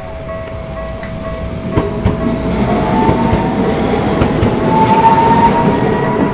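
Tokyu Setagaya Line train rolling across a level crossing: rumble and wheel clicks over the rail joints build up and are loudest about five seconds in, with a rising whine in the middle. The crossing's warning bell rings throughout.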